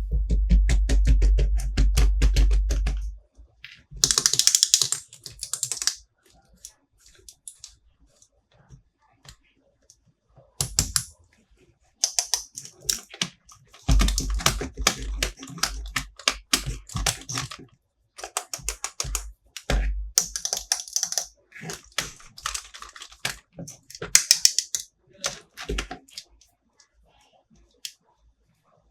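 Plastic toy figures being handled: rapid runs of clicking and tapping, with short crinkly rustles of packaging in between.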